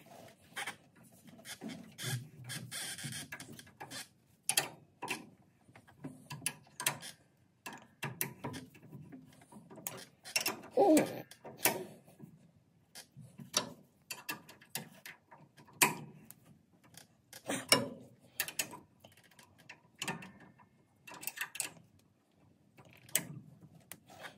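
Irregular metallic clicks and knocks, some in quick little clusters, from hand tools and parts being worked on a rear disc brake caliper and its mounting bracket.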